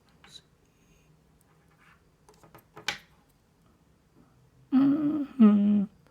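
A few light plastic clicks and taps from handling a SATA power cable at a hard drive, one sharper click about three seconds in. Then a short two-part hum from the person, the loudest sound.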